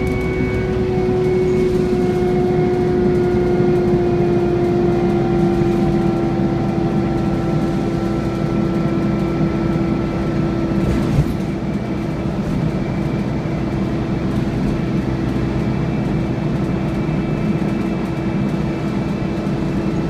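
Scania N230UD double-decker bus heard from inside, running with the steady vacuum-cleaner-like "hoovering" whine these Scanias are known for, over a low rumble. The whine drifts slightly lower in pitch over the first several seconds, and there is one brief knock about eleven seconds in.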